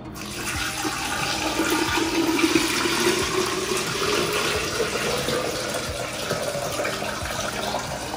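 Water poured in a steady stream from two glass pitchers into a tall glass vase, splashing and gurgling as the vase fills.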